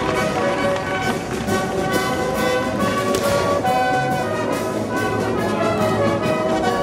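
Orchestral background music led by brass, playing held chords.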